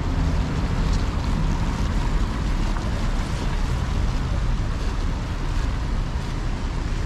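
Steady outdoor street noise: an even, low rumble of traffic with no distinct events.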